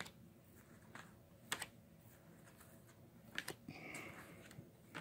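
Faint clicks and taps of stiff cardboard-framed photo cards being handled and laid on top of one another, a close pair of clicks about three and a half seconds in, followed by a short sliding rustle.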